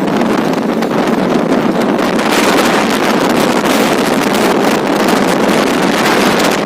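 Loud steady rushing of a train running at speed, with wind buffeting the microphone; it grows a little brighter about two seconds in.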